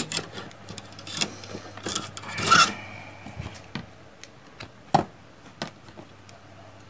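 Plastic solderless breadboard handled and shifted on a cutting mat, rubbing and scraping, as a small potentiometer module's pins are worked in and pulled out of it. Several sharp clicks: the loudest scrape comes about two and a half seconds in and a sharp click about five seconds in.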